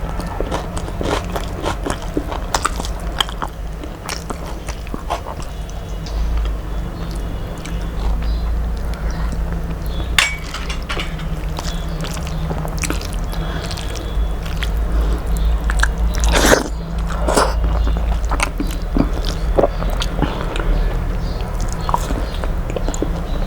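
A person eating close to the microphone: irregular crunchy bites and wet chewing, with one louder crunch about two-thirds of the way through, over a steady low hum.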